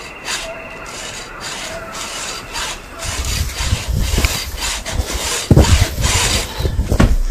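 Footsteps on a hiking trail, about two a second. From about three seconds in they are joined by louder scraping and rubbing noise with low rumbling.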